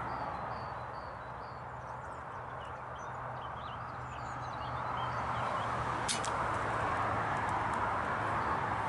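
Small birds chirping over a steady low hum and rushing background noise that swells about halfway through, with a single sharp click about six seconds in.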